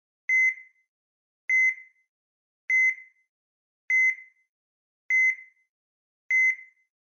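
Electronic heart-monitor-style beep sound effect: a single steady high tone with a short fade, repeating evenly about every 1.2 seconds, six beeps in all.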